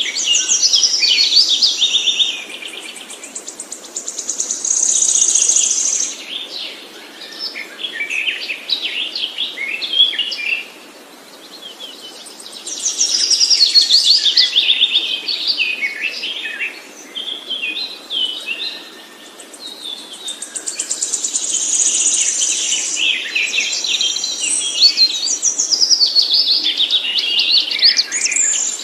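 A songbird singing long, varied song phrases of rapid trills and chirps, in bouts broken by short pauses about 11 and 19 seconds in.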